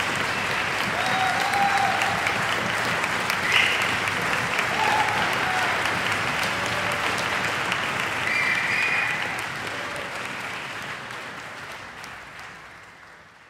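Concert audience applauding, a dense, even clapping that fades out over the last few seconds.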